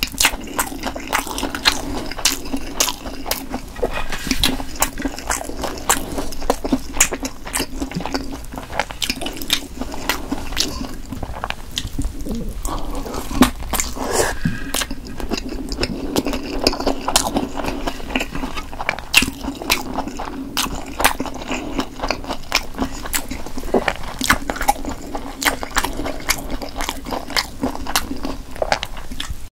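Close-up chewing and biting of Korean blood sausage (sundae steak): a dense, continuous run of small mouth clicks and smacks.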